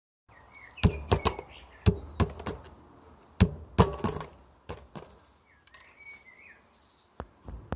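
An irregular string of sharp knocks and clanks, about a dozen over several seconds, the loudest about a second in, at two seconds and at three and a half seconds. A few short bird chirps come near the start and again after six seconds.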